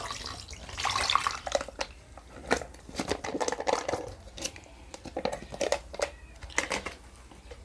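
Rasgullas and their sugar syrup poured from a plastic tub into a glass bowl, splashing and sloshing for the first second or so, then clicks and knocks of plastic tubs being handled and opened.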